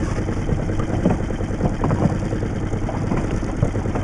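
Outboard motor idling steadily on a small inflatable boat.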